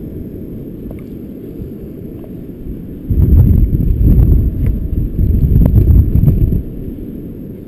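Strong wind buffeting the microphone: a steady low rumble that swells into heavy gusts about three seconds in and drops back about a second before the end.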